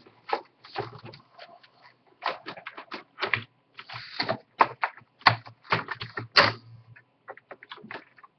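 Mechanical keyboard keys being typed on: irregular keystroke clicks and clacks, with a few louder key strikes about five and six seconds in.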